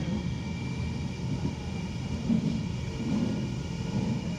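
Cabin noise of a Manchester Metrolink Bombardier M5000 tram under way: a steady low rumble from the wheels and running gear on the rails, with a faint steady high whine above it.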